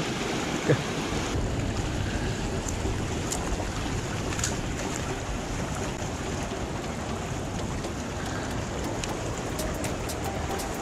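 Steady rush of water flowing down a concrete canal and spilling over a small weir, with wind noise on the microphone and a few faint ticks near the end.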